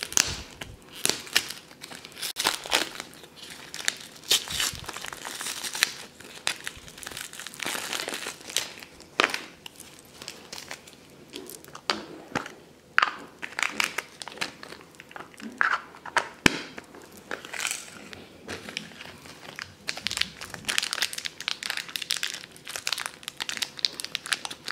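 Plastic shrink-wrap being crinkled and peeled off a plastic pumpkin-shaped blind box, then the foil blind bag inside crinkled and torn open, in irregular close crackles with one sharp click about two-thirds of the way through.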